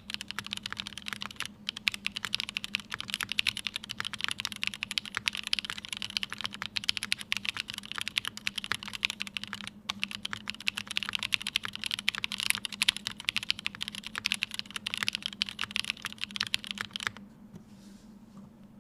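Continuous typing on a custom mechanical keyboard: a Tomo with lubed and filmed Cherry MX Black linear switches on Kailh stems, an aluminium top-mount plate and GMK Serika ABS keycaps. There is a brief break about halfway, and the typing stops shortly before the end.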